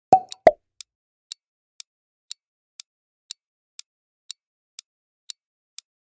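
Countdown timer sound effect: a clock ticking steadily about twice a second, after two short pops near the start.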